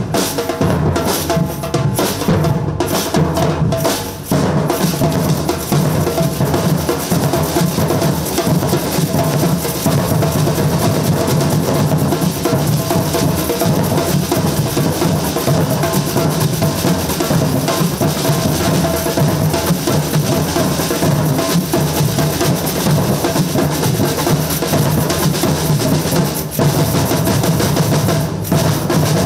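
Samba batucada drum group playing a dense, steady groove: deep surdo bass drums under smaller drums and metal jingle shakers (chocalhos).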